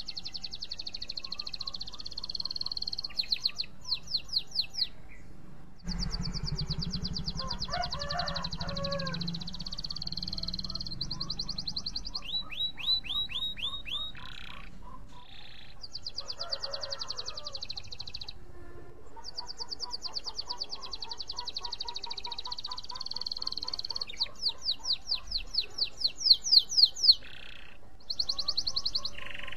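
Domestic canary singing: long, fast rattling trills high in pitch, broken by runs of quick downward-sweeping notes, the loudest of which come near the end. This is the kind of canary song used as a lure ('pancingan') to prompt other canaries to sing.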